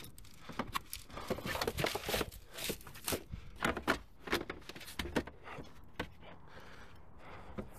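Plastic trash bags crinkling and loose gear knocking as things are shifted around in a packed car back seat. It is a quick string of rustles and knocks that dies down a little after five seconds in.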